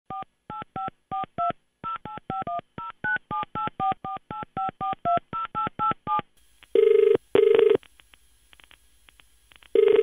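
A touch-tone phone dialling a number: about twenty quick two-tone keypad beeps over six seconds. Then the ringing tone of the called line comes in, two double rings about three seconds apart.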